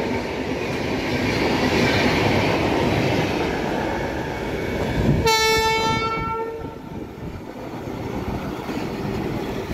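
Express train coaches rushing past at speed with clickety-clack wheel noise, which eases off as the last coach pulls away. About five seconds in, a train horn sounds for about a second and a half, and the rail noise then fades.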